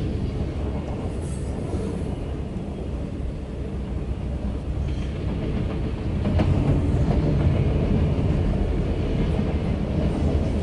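Loaded CSX autorack freight train rolling past: a steady rumble of steel wheels on rail, growing louder about six seconds in.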